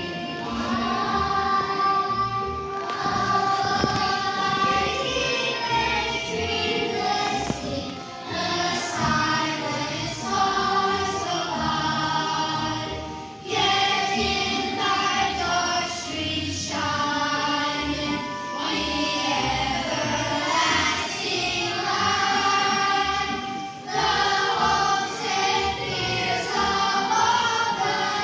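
A choir, with children's voices among them, singing a song over instrumental accompaniment, with short breaks between phrases.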